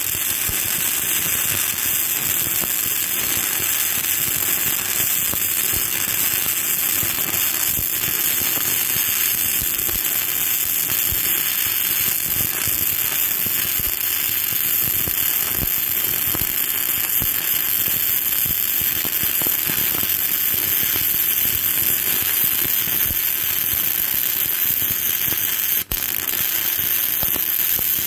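Self-shielded flux-core welding arc burning with a steady, continuous crackle as 5/64-inch Lincoln NR-211 wire is fed into the joint, the arc digging in deep. Near the end the sound drops out for an instant.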